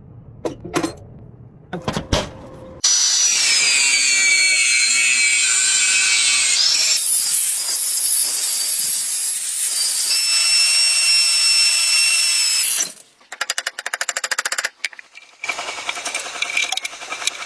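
A few knocks, then a power tool running loudly for about ten seconds with a high whine that dips in pitch partway through; it stops suddenly and is followed by a fast, rattling buzz and further grinding noise.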